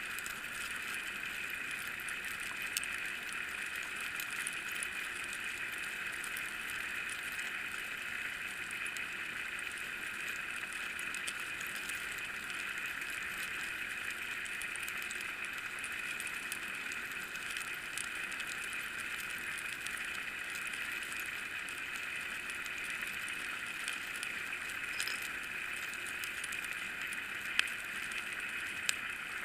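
Steady underwater hiss picked up by a camera housing mounted inside a bottom trawl net under tow. A few faint sharp clicks sound, one a few seconds in and two near the end.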